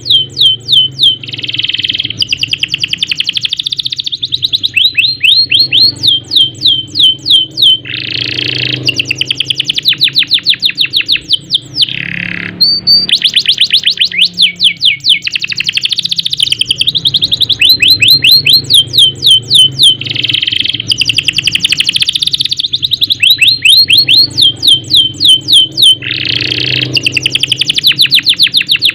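Domestic canary singing a long, loud song of rolling trills: runs of fast, repeated down-slurred notes, broken every few seconds by harsher buzzy phrases.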